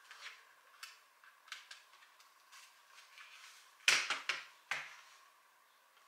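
Typing on a compact white computer keyboard: scattered single keystrokes, then a quick run of four or five louder key presses about four seconds in.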